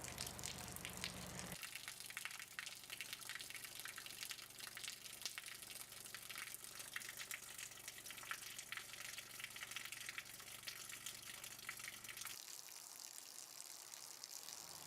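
Running water pouring and splashing in a steady crackling hiss. A low steady hum that accompanies it stops about a second and a half in.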